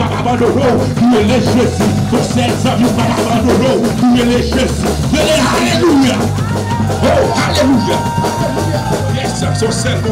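Live worship band playing: congas and a drum kit with cymbals keeping a steady beat over a stepping bass line.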